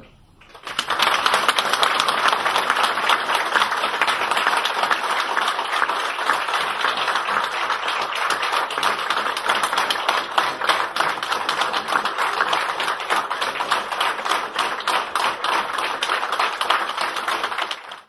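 Audience applauding: many hands clapping at once, a dense steady patter that starts about a second in.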